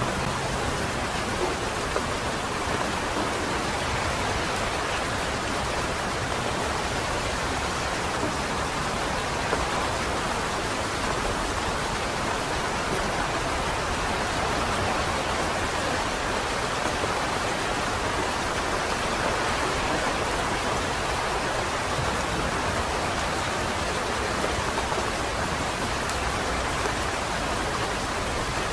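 Steady rain falling on a wet city street, an even hiss with no single passing car standing out.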